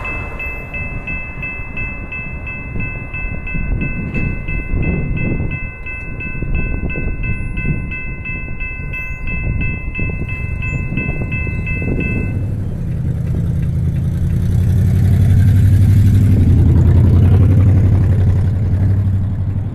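Electronic level-crossing warning bell ringing in rapid, even strokes, about three a second, over the low rumble of a passenger train running away down the track. The bell stops abruptly about twelve seconds in, and a low steady rumble then grows louder near the end.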